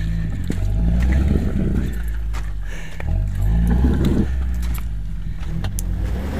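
Jeep Wrangler TJ engine working the truck up a rocky gully, revving up twice, about a second in and again around four seconds in, with a few sharp clicks.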